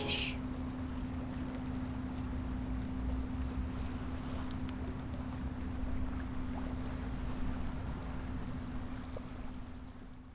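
Crickets chirping in a steady rhythm of about three chirps a second over a continuous high insect drone and a faint low hum, fading out near the end.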